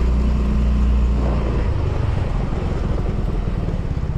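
Small automatic motor scooter's engine running as it rides along, a steady low drone that gives way to a choppier beat about a second and a half in.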